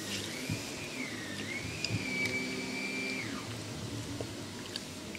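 A thin, steady mechanical whine from an electric motor, wavering a little in pitch, then falling and stopping about three seconds in.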